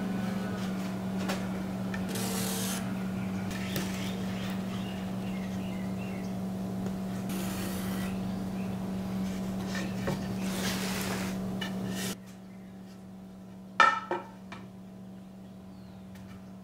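Marker and a wooden straightedge scraping and rubbing across an MDF subwoofer baffle in several second-long strokes as trim lines are drawn, over a steady low hum. About 12 seconds in the hum drops away, and a single sharp knock follows.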